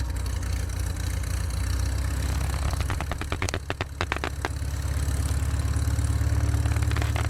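An engine running at idle, a steady low drone, with a cluster of sharp clicks about three to four and a half seconds in.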